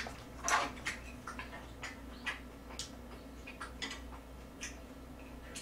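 Close-miked chewing of grilled pork belly: irregular wet mouth clicks and smacks, several a second, over a steady low hum.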